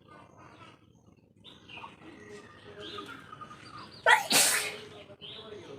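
A single loud, explosive human sneeze about four seconds in, set off by tickling the nose with coconut coir fibre.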